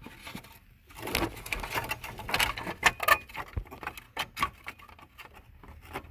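Hard plastic steering-column trim pieces of a Subaru SVX being worked into place, with an irregular run of clicks, knocks and scraping that starts about a second in and dies down after about four seconds.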